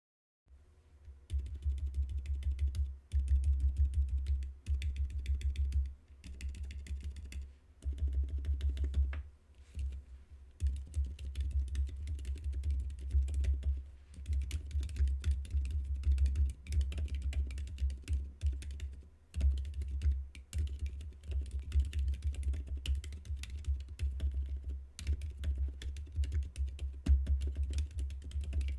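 Continuous typing on a JKDK XCJZ Butterfly mechanical keyboard with Outemu Silent Peach V3 silent switches: rapid, muffled keystrokes with a deep thud. The typing comes in runs of a few seconds with brief pauses between them.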